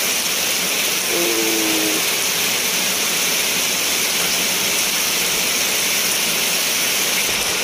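Heavy tropical rain falling in a steady downpour, an even hiss without a break.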